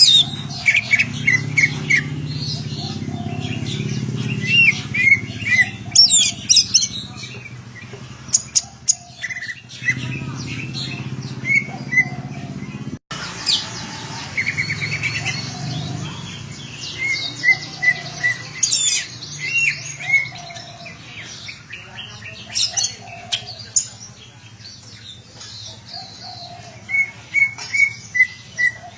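Green leafbird (cocak ijo) singing: repeated short chirps and quick whistled phrases, with a low rumble underneath for the first ten seconds and a brief dropout about thirteen seconds in.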